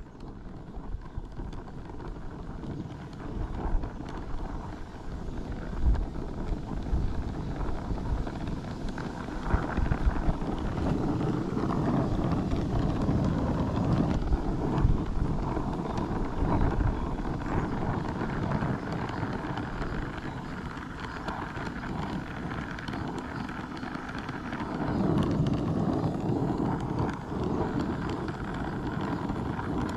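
Oxy-acetylene torch flame rushing steadily as it heats a cast iron pulley for brass brazing, growing louder over the first few seconds, with a few short bumps along the way.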